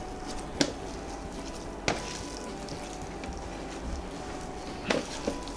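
Boiled potatoes being mashed by hand on a stainless steel plate: soft squishing, with a few sharp clicks of fingers against the metal plate.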